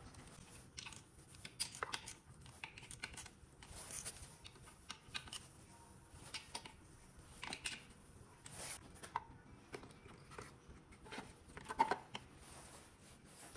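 Irregular metal clicks, clinks and short scrapes of hand tools and timing parts being handled on a BMW N46 cylinder head as the camshaft sprockets are fitted. The loudest knock comes about twelve seconds in.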